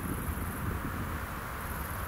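Wind buffeting the microphone with a steady low rumble, and an insect chirping in short, very high-pitched pulsed bursts twice, at the start and near the end.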